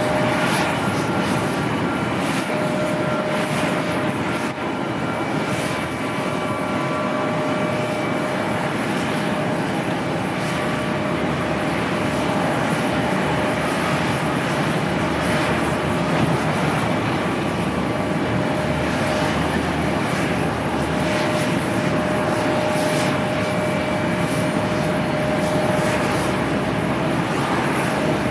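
Jet engines of an Airbus A321 airliner during its landing: a steady rushing noise with a few faint steady tones running through it.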